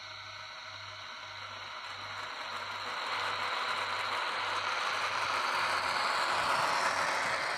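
Model freight train of tank wagons rolling along the track behind an electric locomotive, with a steady rattle of small wheels on the rails. It grows louder from about two seconds in as the wagons come past close by.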